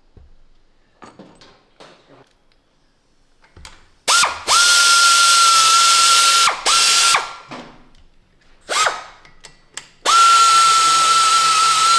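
Powered ratchet or driver running down cylinder head nuts. It comes in bursts: a motor whine spins up, holds steady over a loud rattling, and spins down when released. The longest runs last about two and a half seconds, starting about four seconds in and again near the end.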